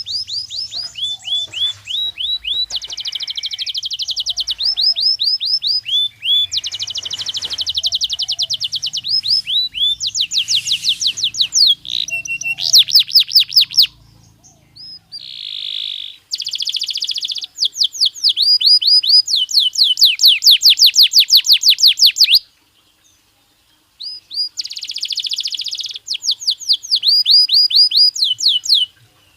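Belgian canary singing: rapid trills of repeated high notes in phrases of a second or two, changing note type from phrase to phrase, with a pause of a second or so a little past the middle.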